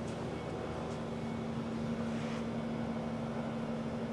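Steady room hum from air handling: one low constant tone over a soft even hiss.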